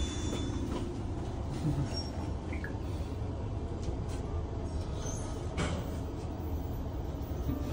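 Steady low mechanical rumble with a few faint clicks, the clearest about halfway through.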